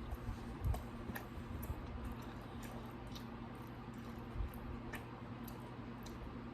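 Close-miked chewing of pizza: soft wet mouth sounds with scattered small clicks, over a steady low hum.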